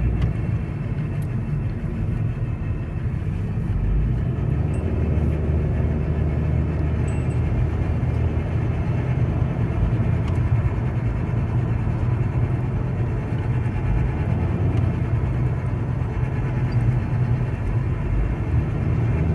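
2019 Honda Accord driving, a steady road and running rumble with a faint rhythmic scraping that speeds up with road speed. The scrape comes and goes on this car, and the owner suspects the front end.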